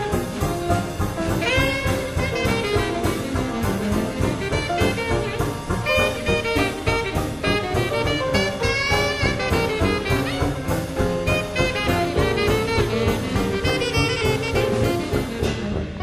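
Background jazz music with saxophone, brass and drums at a swinging beat.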